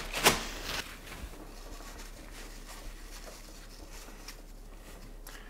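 Paper crinkling and rustling as a wad of it is pushed into an open AC pipe fitting, loudest in the first second, then a few faint rustles.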